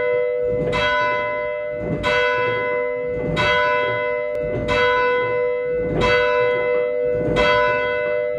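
A single church bell tolling, struck about every 1.3 seconds at the same pitch, six times, each strike ringing on into the next.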